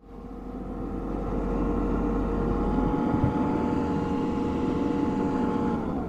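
Diesel engine of a Caterpillar wheel loader running, steady and loud, with a steady whine over it that drops in pitch just before the end as the engine slows.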